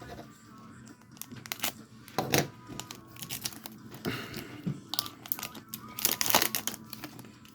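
Foil Pokémon booster pack wrapper crinkling and tearing as it is opened by hand, in several short rustling bursts, the loudest a little after six seconds in.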